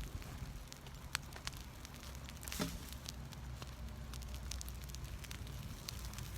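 Wood fire of fallen tree branches crackling, with scattered sharp pops and one louder crack about two and a half seconds in.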